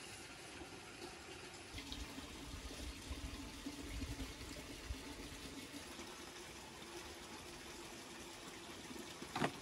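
Steady rush of running water, with a single sharp knock near the end.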